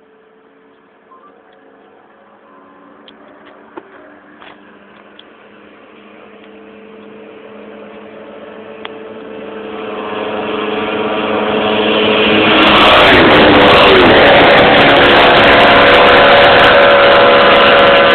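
Ducati 999 motorcycle's 998 cc L-twin engine approaching, growing steadily louder over about twelve seconds until it is loud and close, then running loud to the end, with distortion at its loudest.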